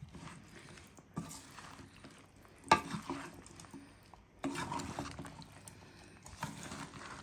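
Spoon stirring and tossing chopped pickle vegetables in a steel pan, mixing in the vinegar, in irregular scraping strokes. There is one sharp knock of the spoon against the pan about two and a half seconds in.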